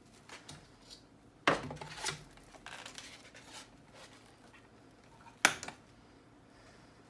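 Wire cutters snipping electrical cable: two sharp snaps about four seconds apart, with small clicks and handling noise between.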